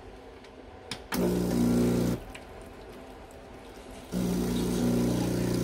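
CRM3605+ espresso machine's vibration pump running twice, a steady buzz with water flowing through the group head: a one-second burst about a second in, then again from about four seconds in. This is a group-head flush with the portafilter not yet locked in.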